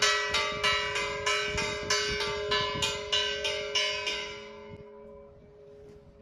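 Church bell struck in quick succession, about three strokes a second for some four seconds, then left to ring on and die away.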